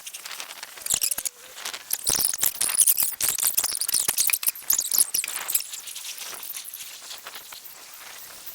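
A wind gust thrashing tree foliage: a crackling rustle of leaves that swells about two seconds in and eases off after about five seconds.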